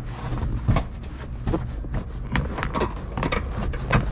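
Irregular knocks, clunks and scraping as a car's rear seat is worked loose and slid out of a hatchback.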